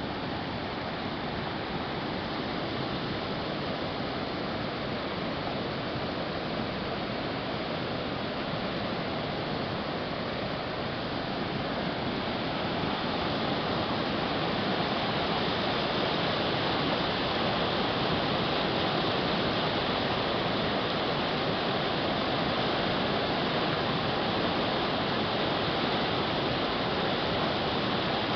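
Rain-swollen creek in flood: a muddy torrent rushing and churning over rapids, a steady rush of water that grows a little louder about halfway through.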